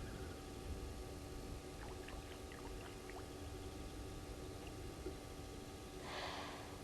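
A short burst of breathy noise, about half a second long, a little after six seconds in: the unidentified mystery sound of an animal at a night-time waterhole. Under it run faint steady tones and a few faint, brief chirps.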